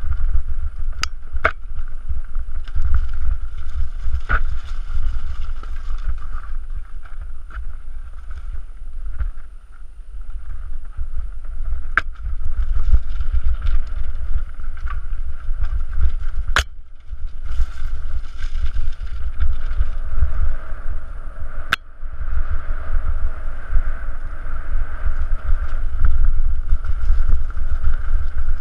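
Mountain bike descending rocky singletrack: wind rumbling on the on-bike camera's microphone over the rattle of the bike and tyres on loose stones, with several sharp clicks and knocks from the bike hitting rocks.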